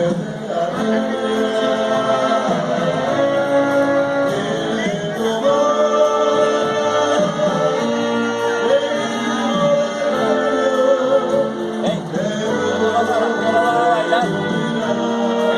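A band playing a song with a sung vocal line, the voice holding long notes over the instruments.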